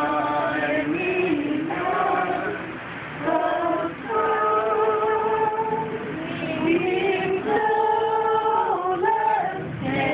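A small group of people singing a song together without accompaniment, women's voices the loudest, with several long held notes.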